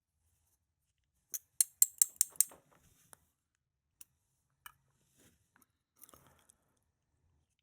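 A quick run of about six sharp, light metallic clicks about a second in, then a few faint isolated ticks: small lock pins and springs being handled with metal tools while the lock's core is taken apart.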